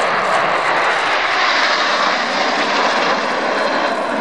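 Jet roar from the Red Arrows' formation of BAE Hawk T1 jets, with their Rolls-Royce Turbomeca Adour turbofans, flying overhead. The roar is steady and loud, and brightens a little in the middle as the formation passes.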